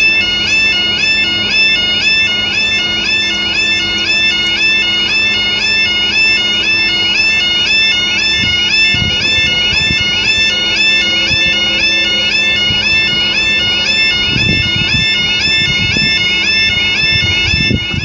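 Railway level crossing warning alarm: the British two-tone 'yodel' alarm sounding continuously in a rapid warble while the red road lights flash and the barriers lower, warning of an approaching train. A few low thumps near the end.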